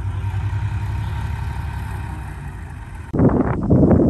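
Komatsu crawler bulldozer's diesel engine running steadily with a low hum. About three seconds in, a sudden louder, rough noise takes over.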